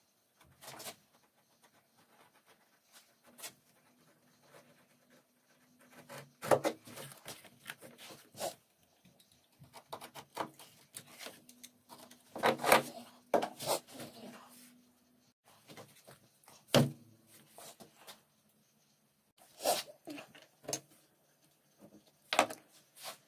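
Hands working leather on a wooden workbench: a utility knife drawn through the leather, the sheet shifted and folded, and tools set down. It comes as scattered scrapes, rustles and sharp knocks with quiet gaps between them, and a faint low hum runs for several seconds through the middle.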